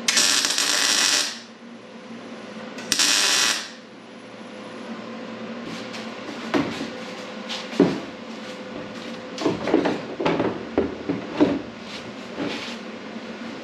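Two short bursts of wire-feed welding, tack welds on new steel bumper tubing, each a loud even hiss that starts and stops sharply, the second shorter. From about halfway on, a run of knocks and clatters as the plastic nose cover is handled and fitted against the front.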